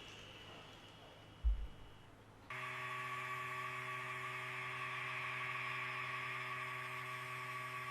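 Small electric model-train motor running steadily at constant speed, a humming buzz with a faint hiss that starts suddenly about two and a half seconds in; a single low thump comes just before it.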